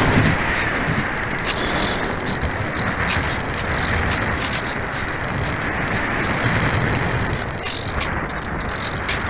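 Steady rush of air over the onboard camera microphone of a radio-controlled glider in flight, an even noisy whoosh without a clear motor tone.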